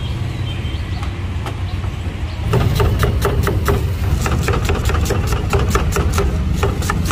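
Large kitchen knife slicing through an onion and striking a wooden chopping board in quick, even strokes, about five a second, starting about two and a half seconds in. A steady low engine-like hum runs underneath.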